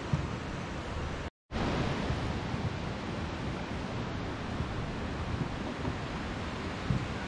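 Steady rushing outdoor noise, cut to silence for a moment about a second and a half in.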